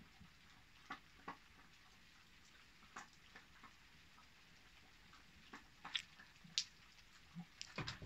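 Near silence broken by scattered faint ticks and taps at irregular intervals, a little more frequent near the end.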